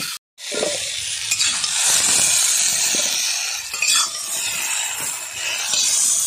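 Yam cubes frying in hot oil in a cast-iron wok: a steady sizzle that begins just under half a second in, with a flat metal spatula scraping and turning them against the pan now and then.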